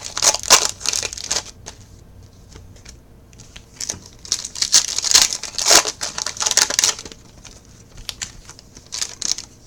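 Trading-card pack wrappers being torn open and crinkled in the hands, in several bouts of crinkling with short pauses between.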